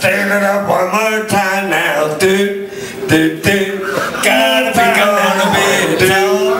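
A man singing a medley of song snippets: held notes broken by short pauses.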